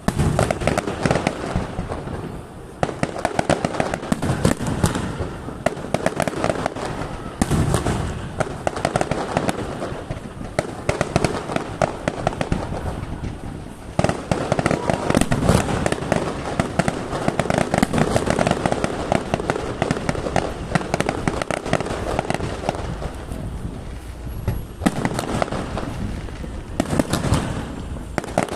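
A fireworks display: a dense, continuous run of bangs and crackling shell bursts, with heavier flurries of reports every few seconds.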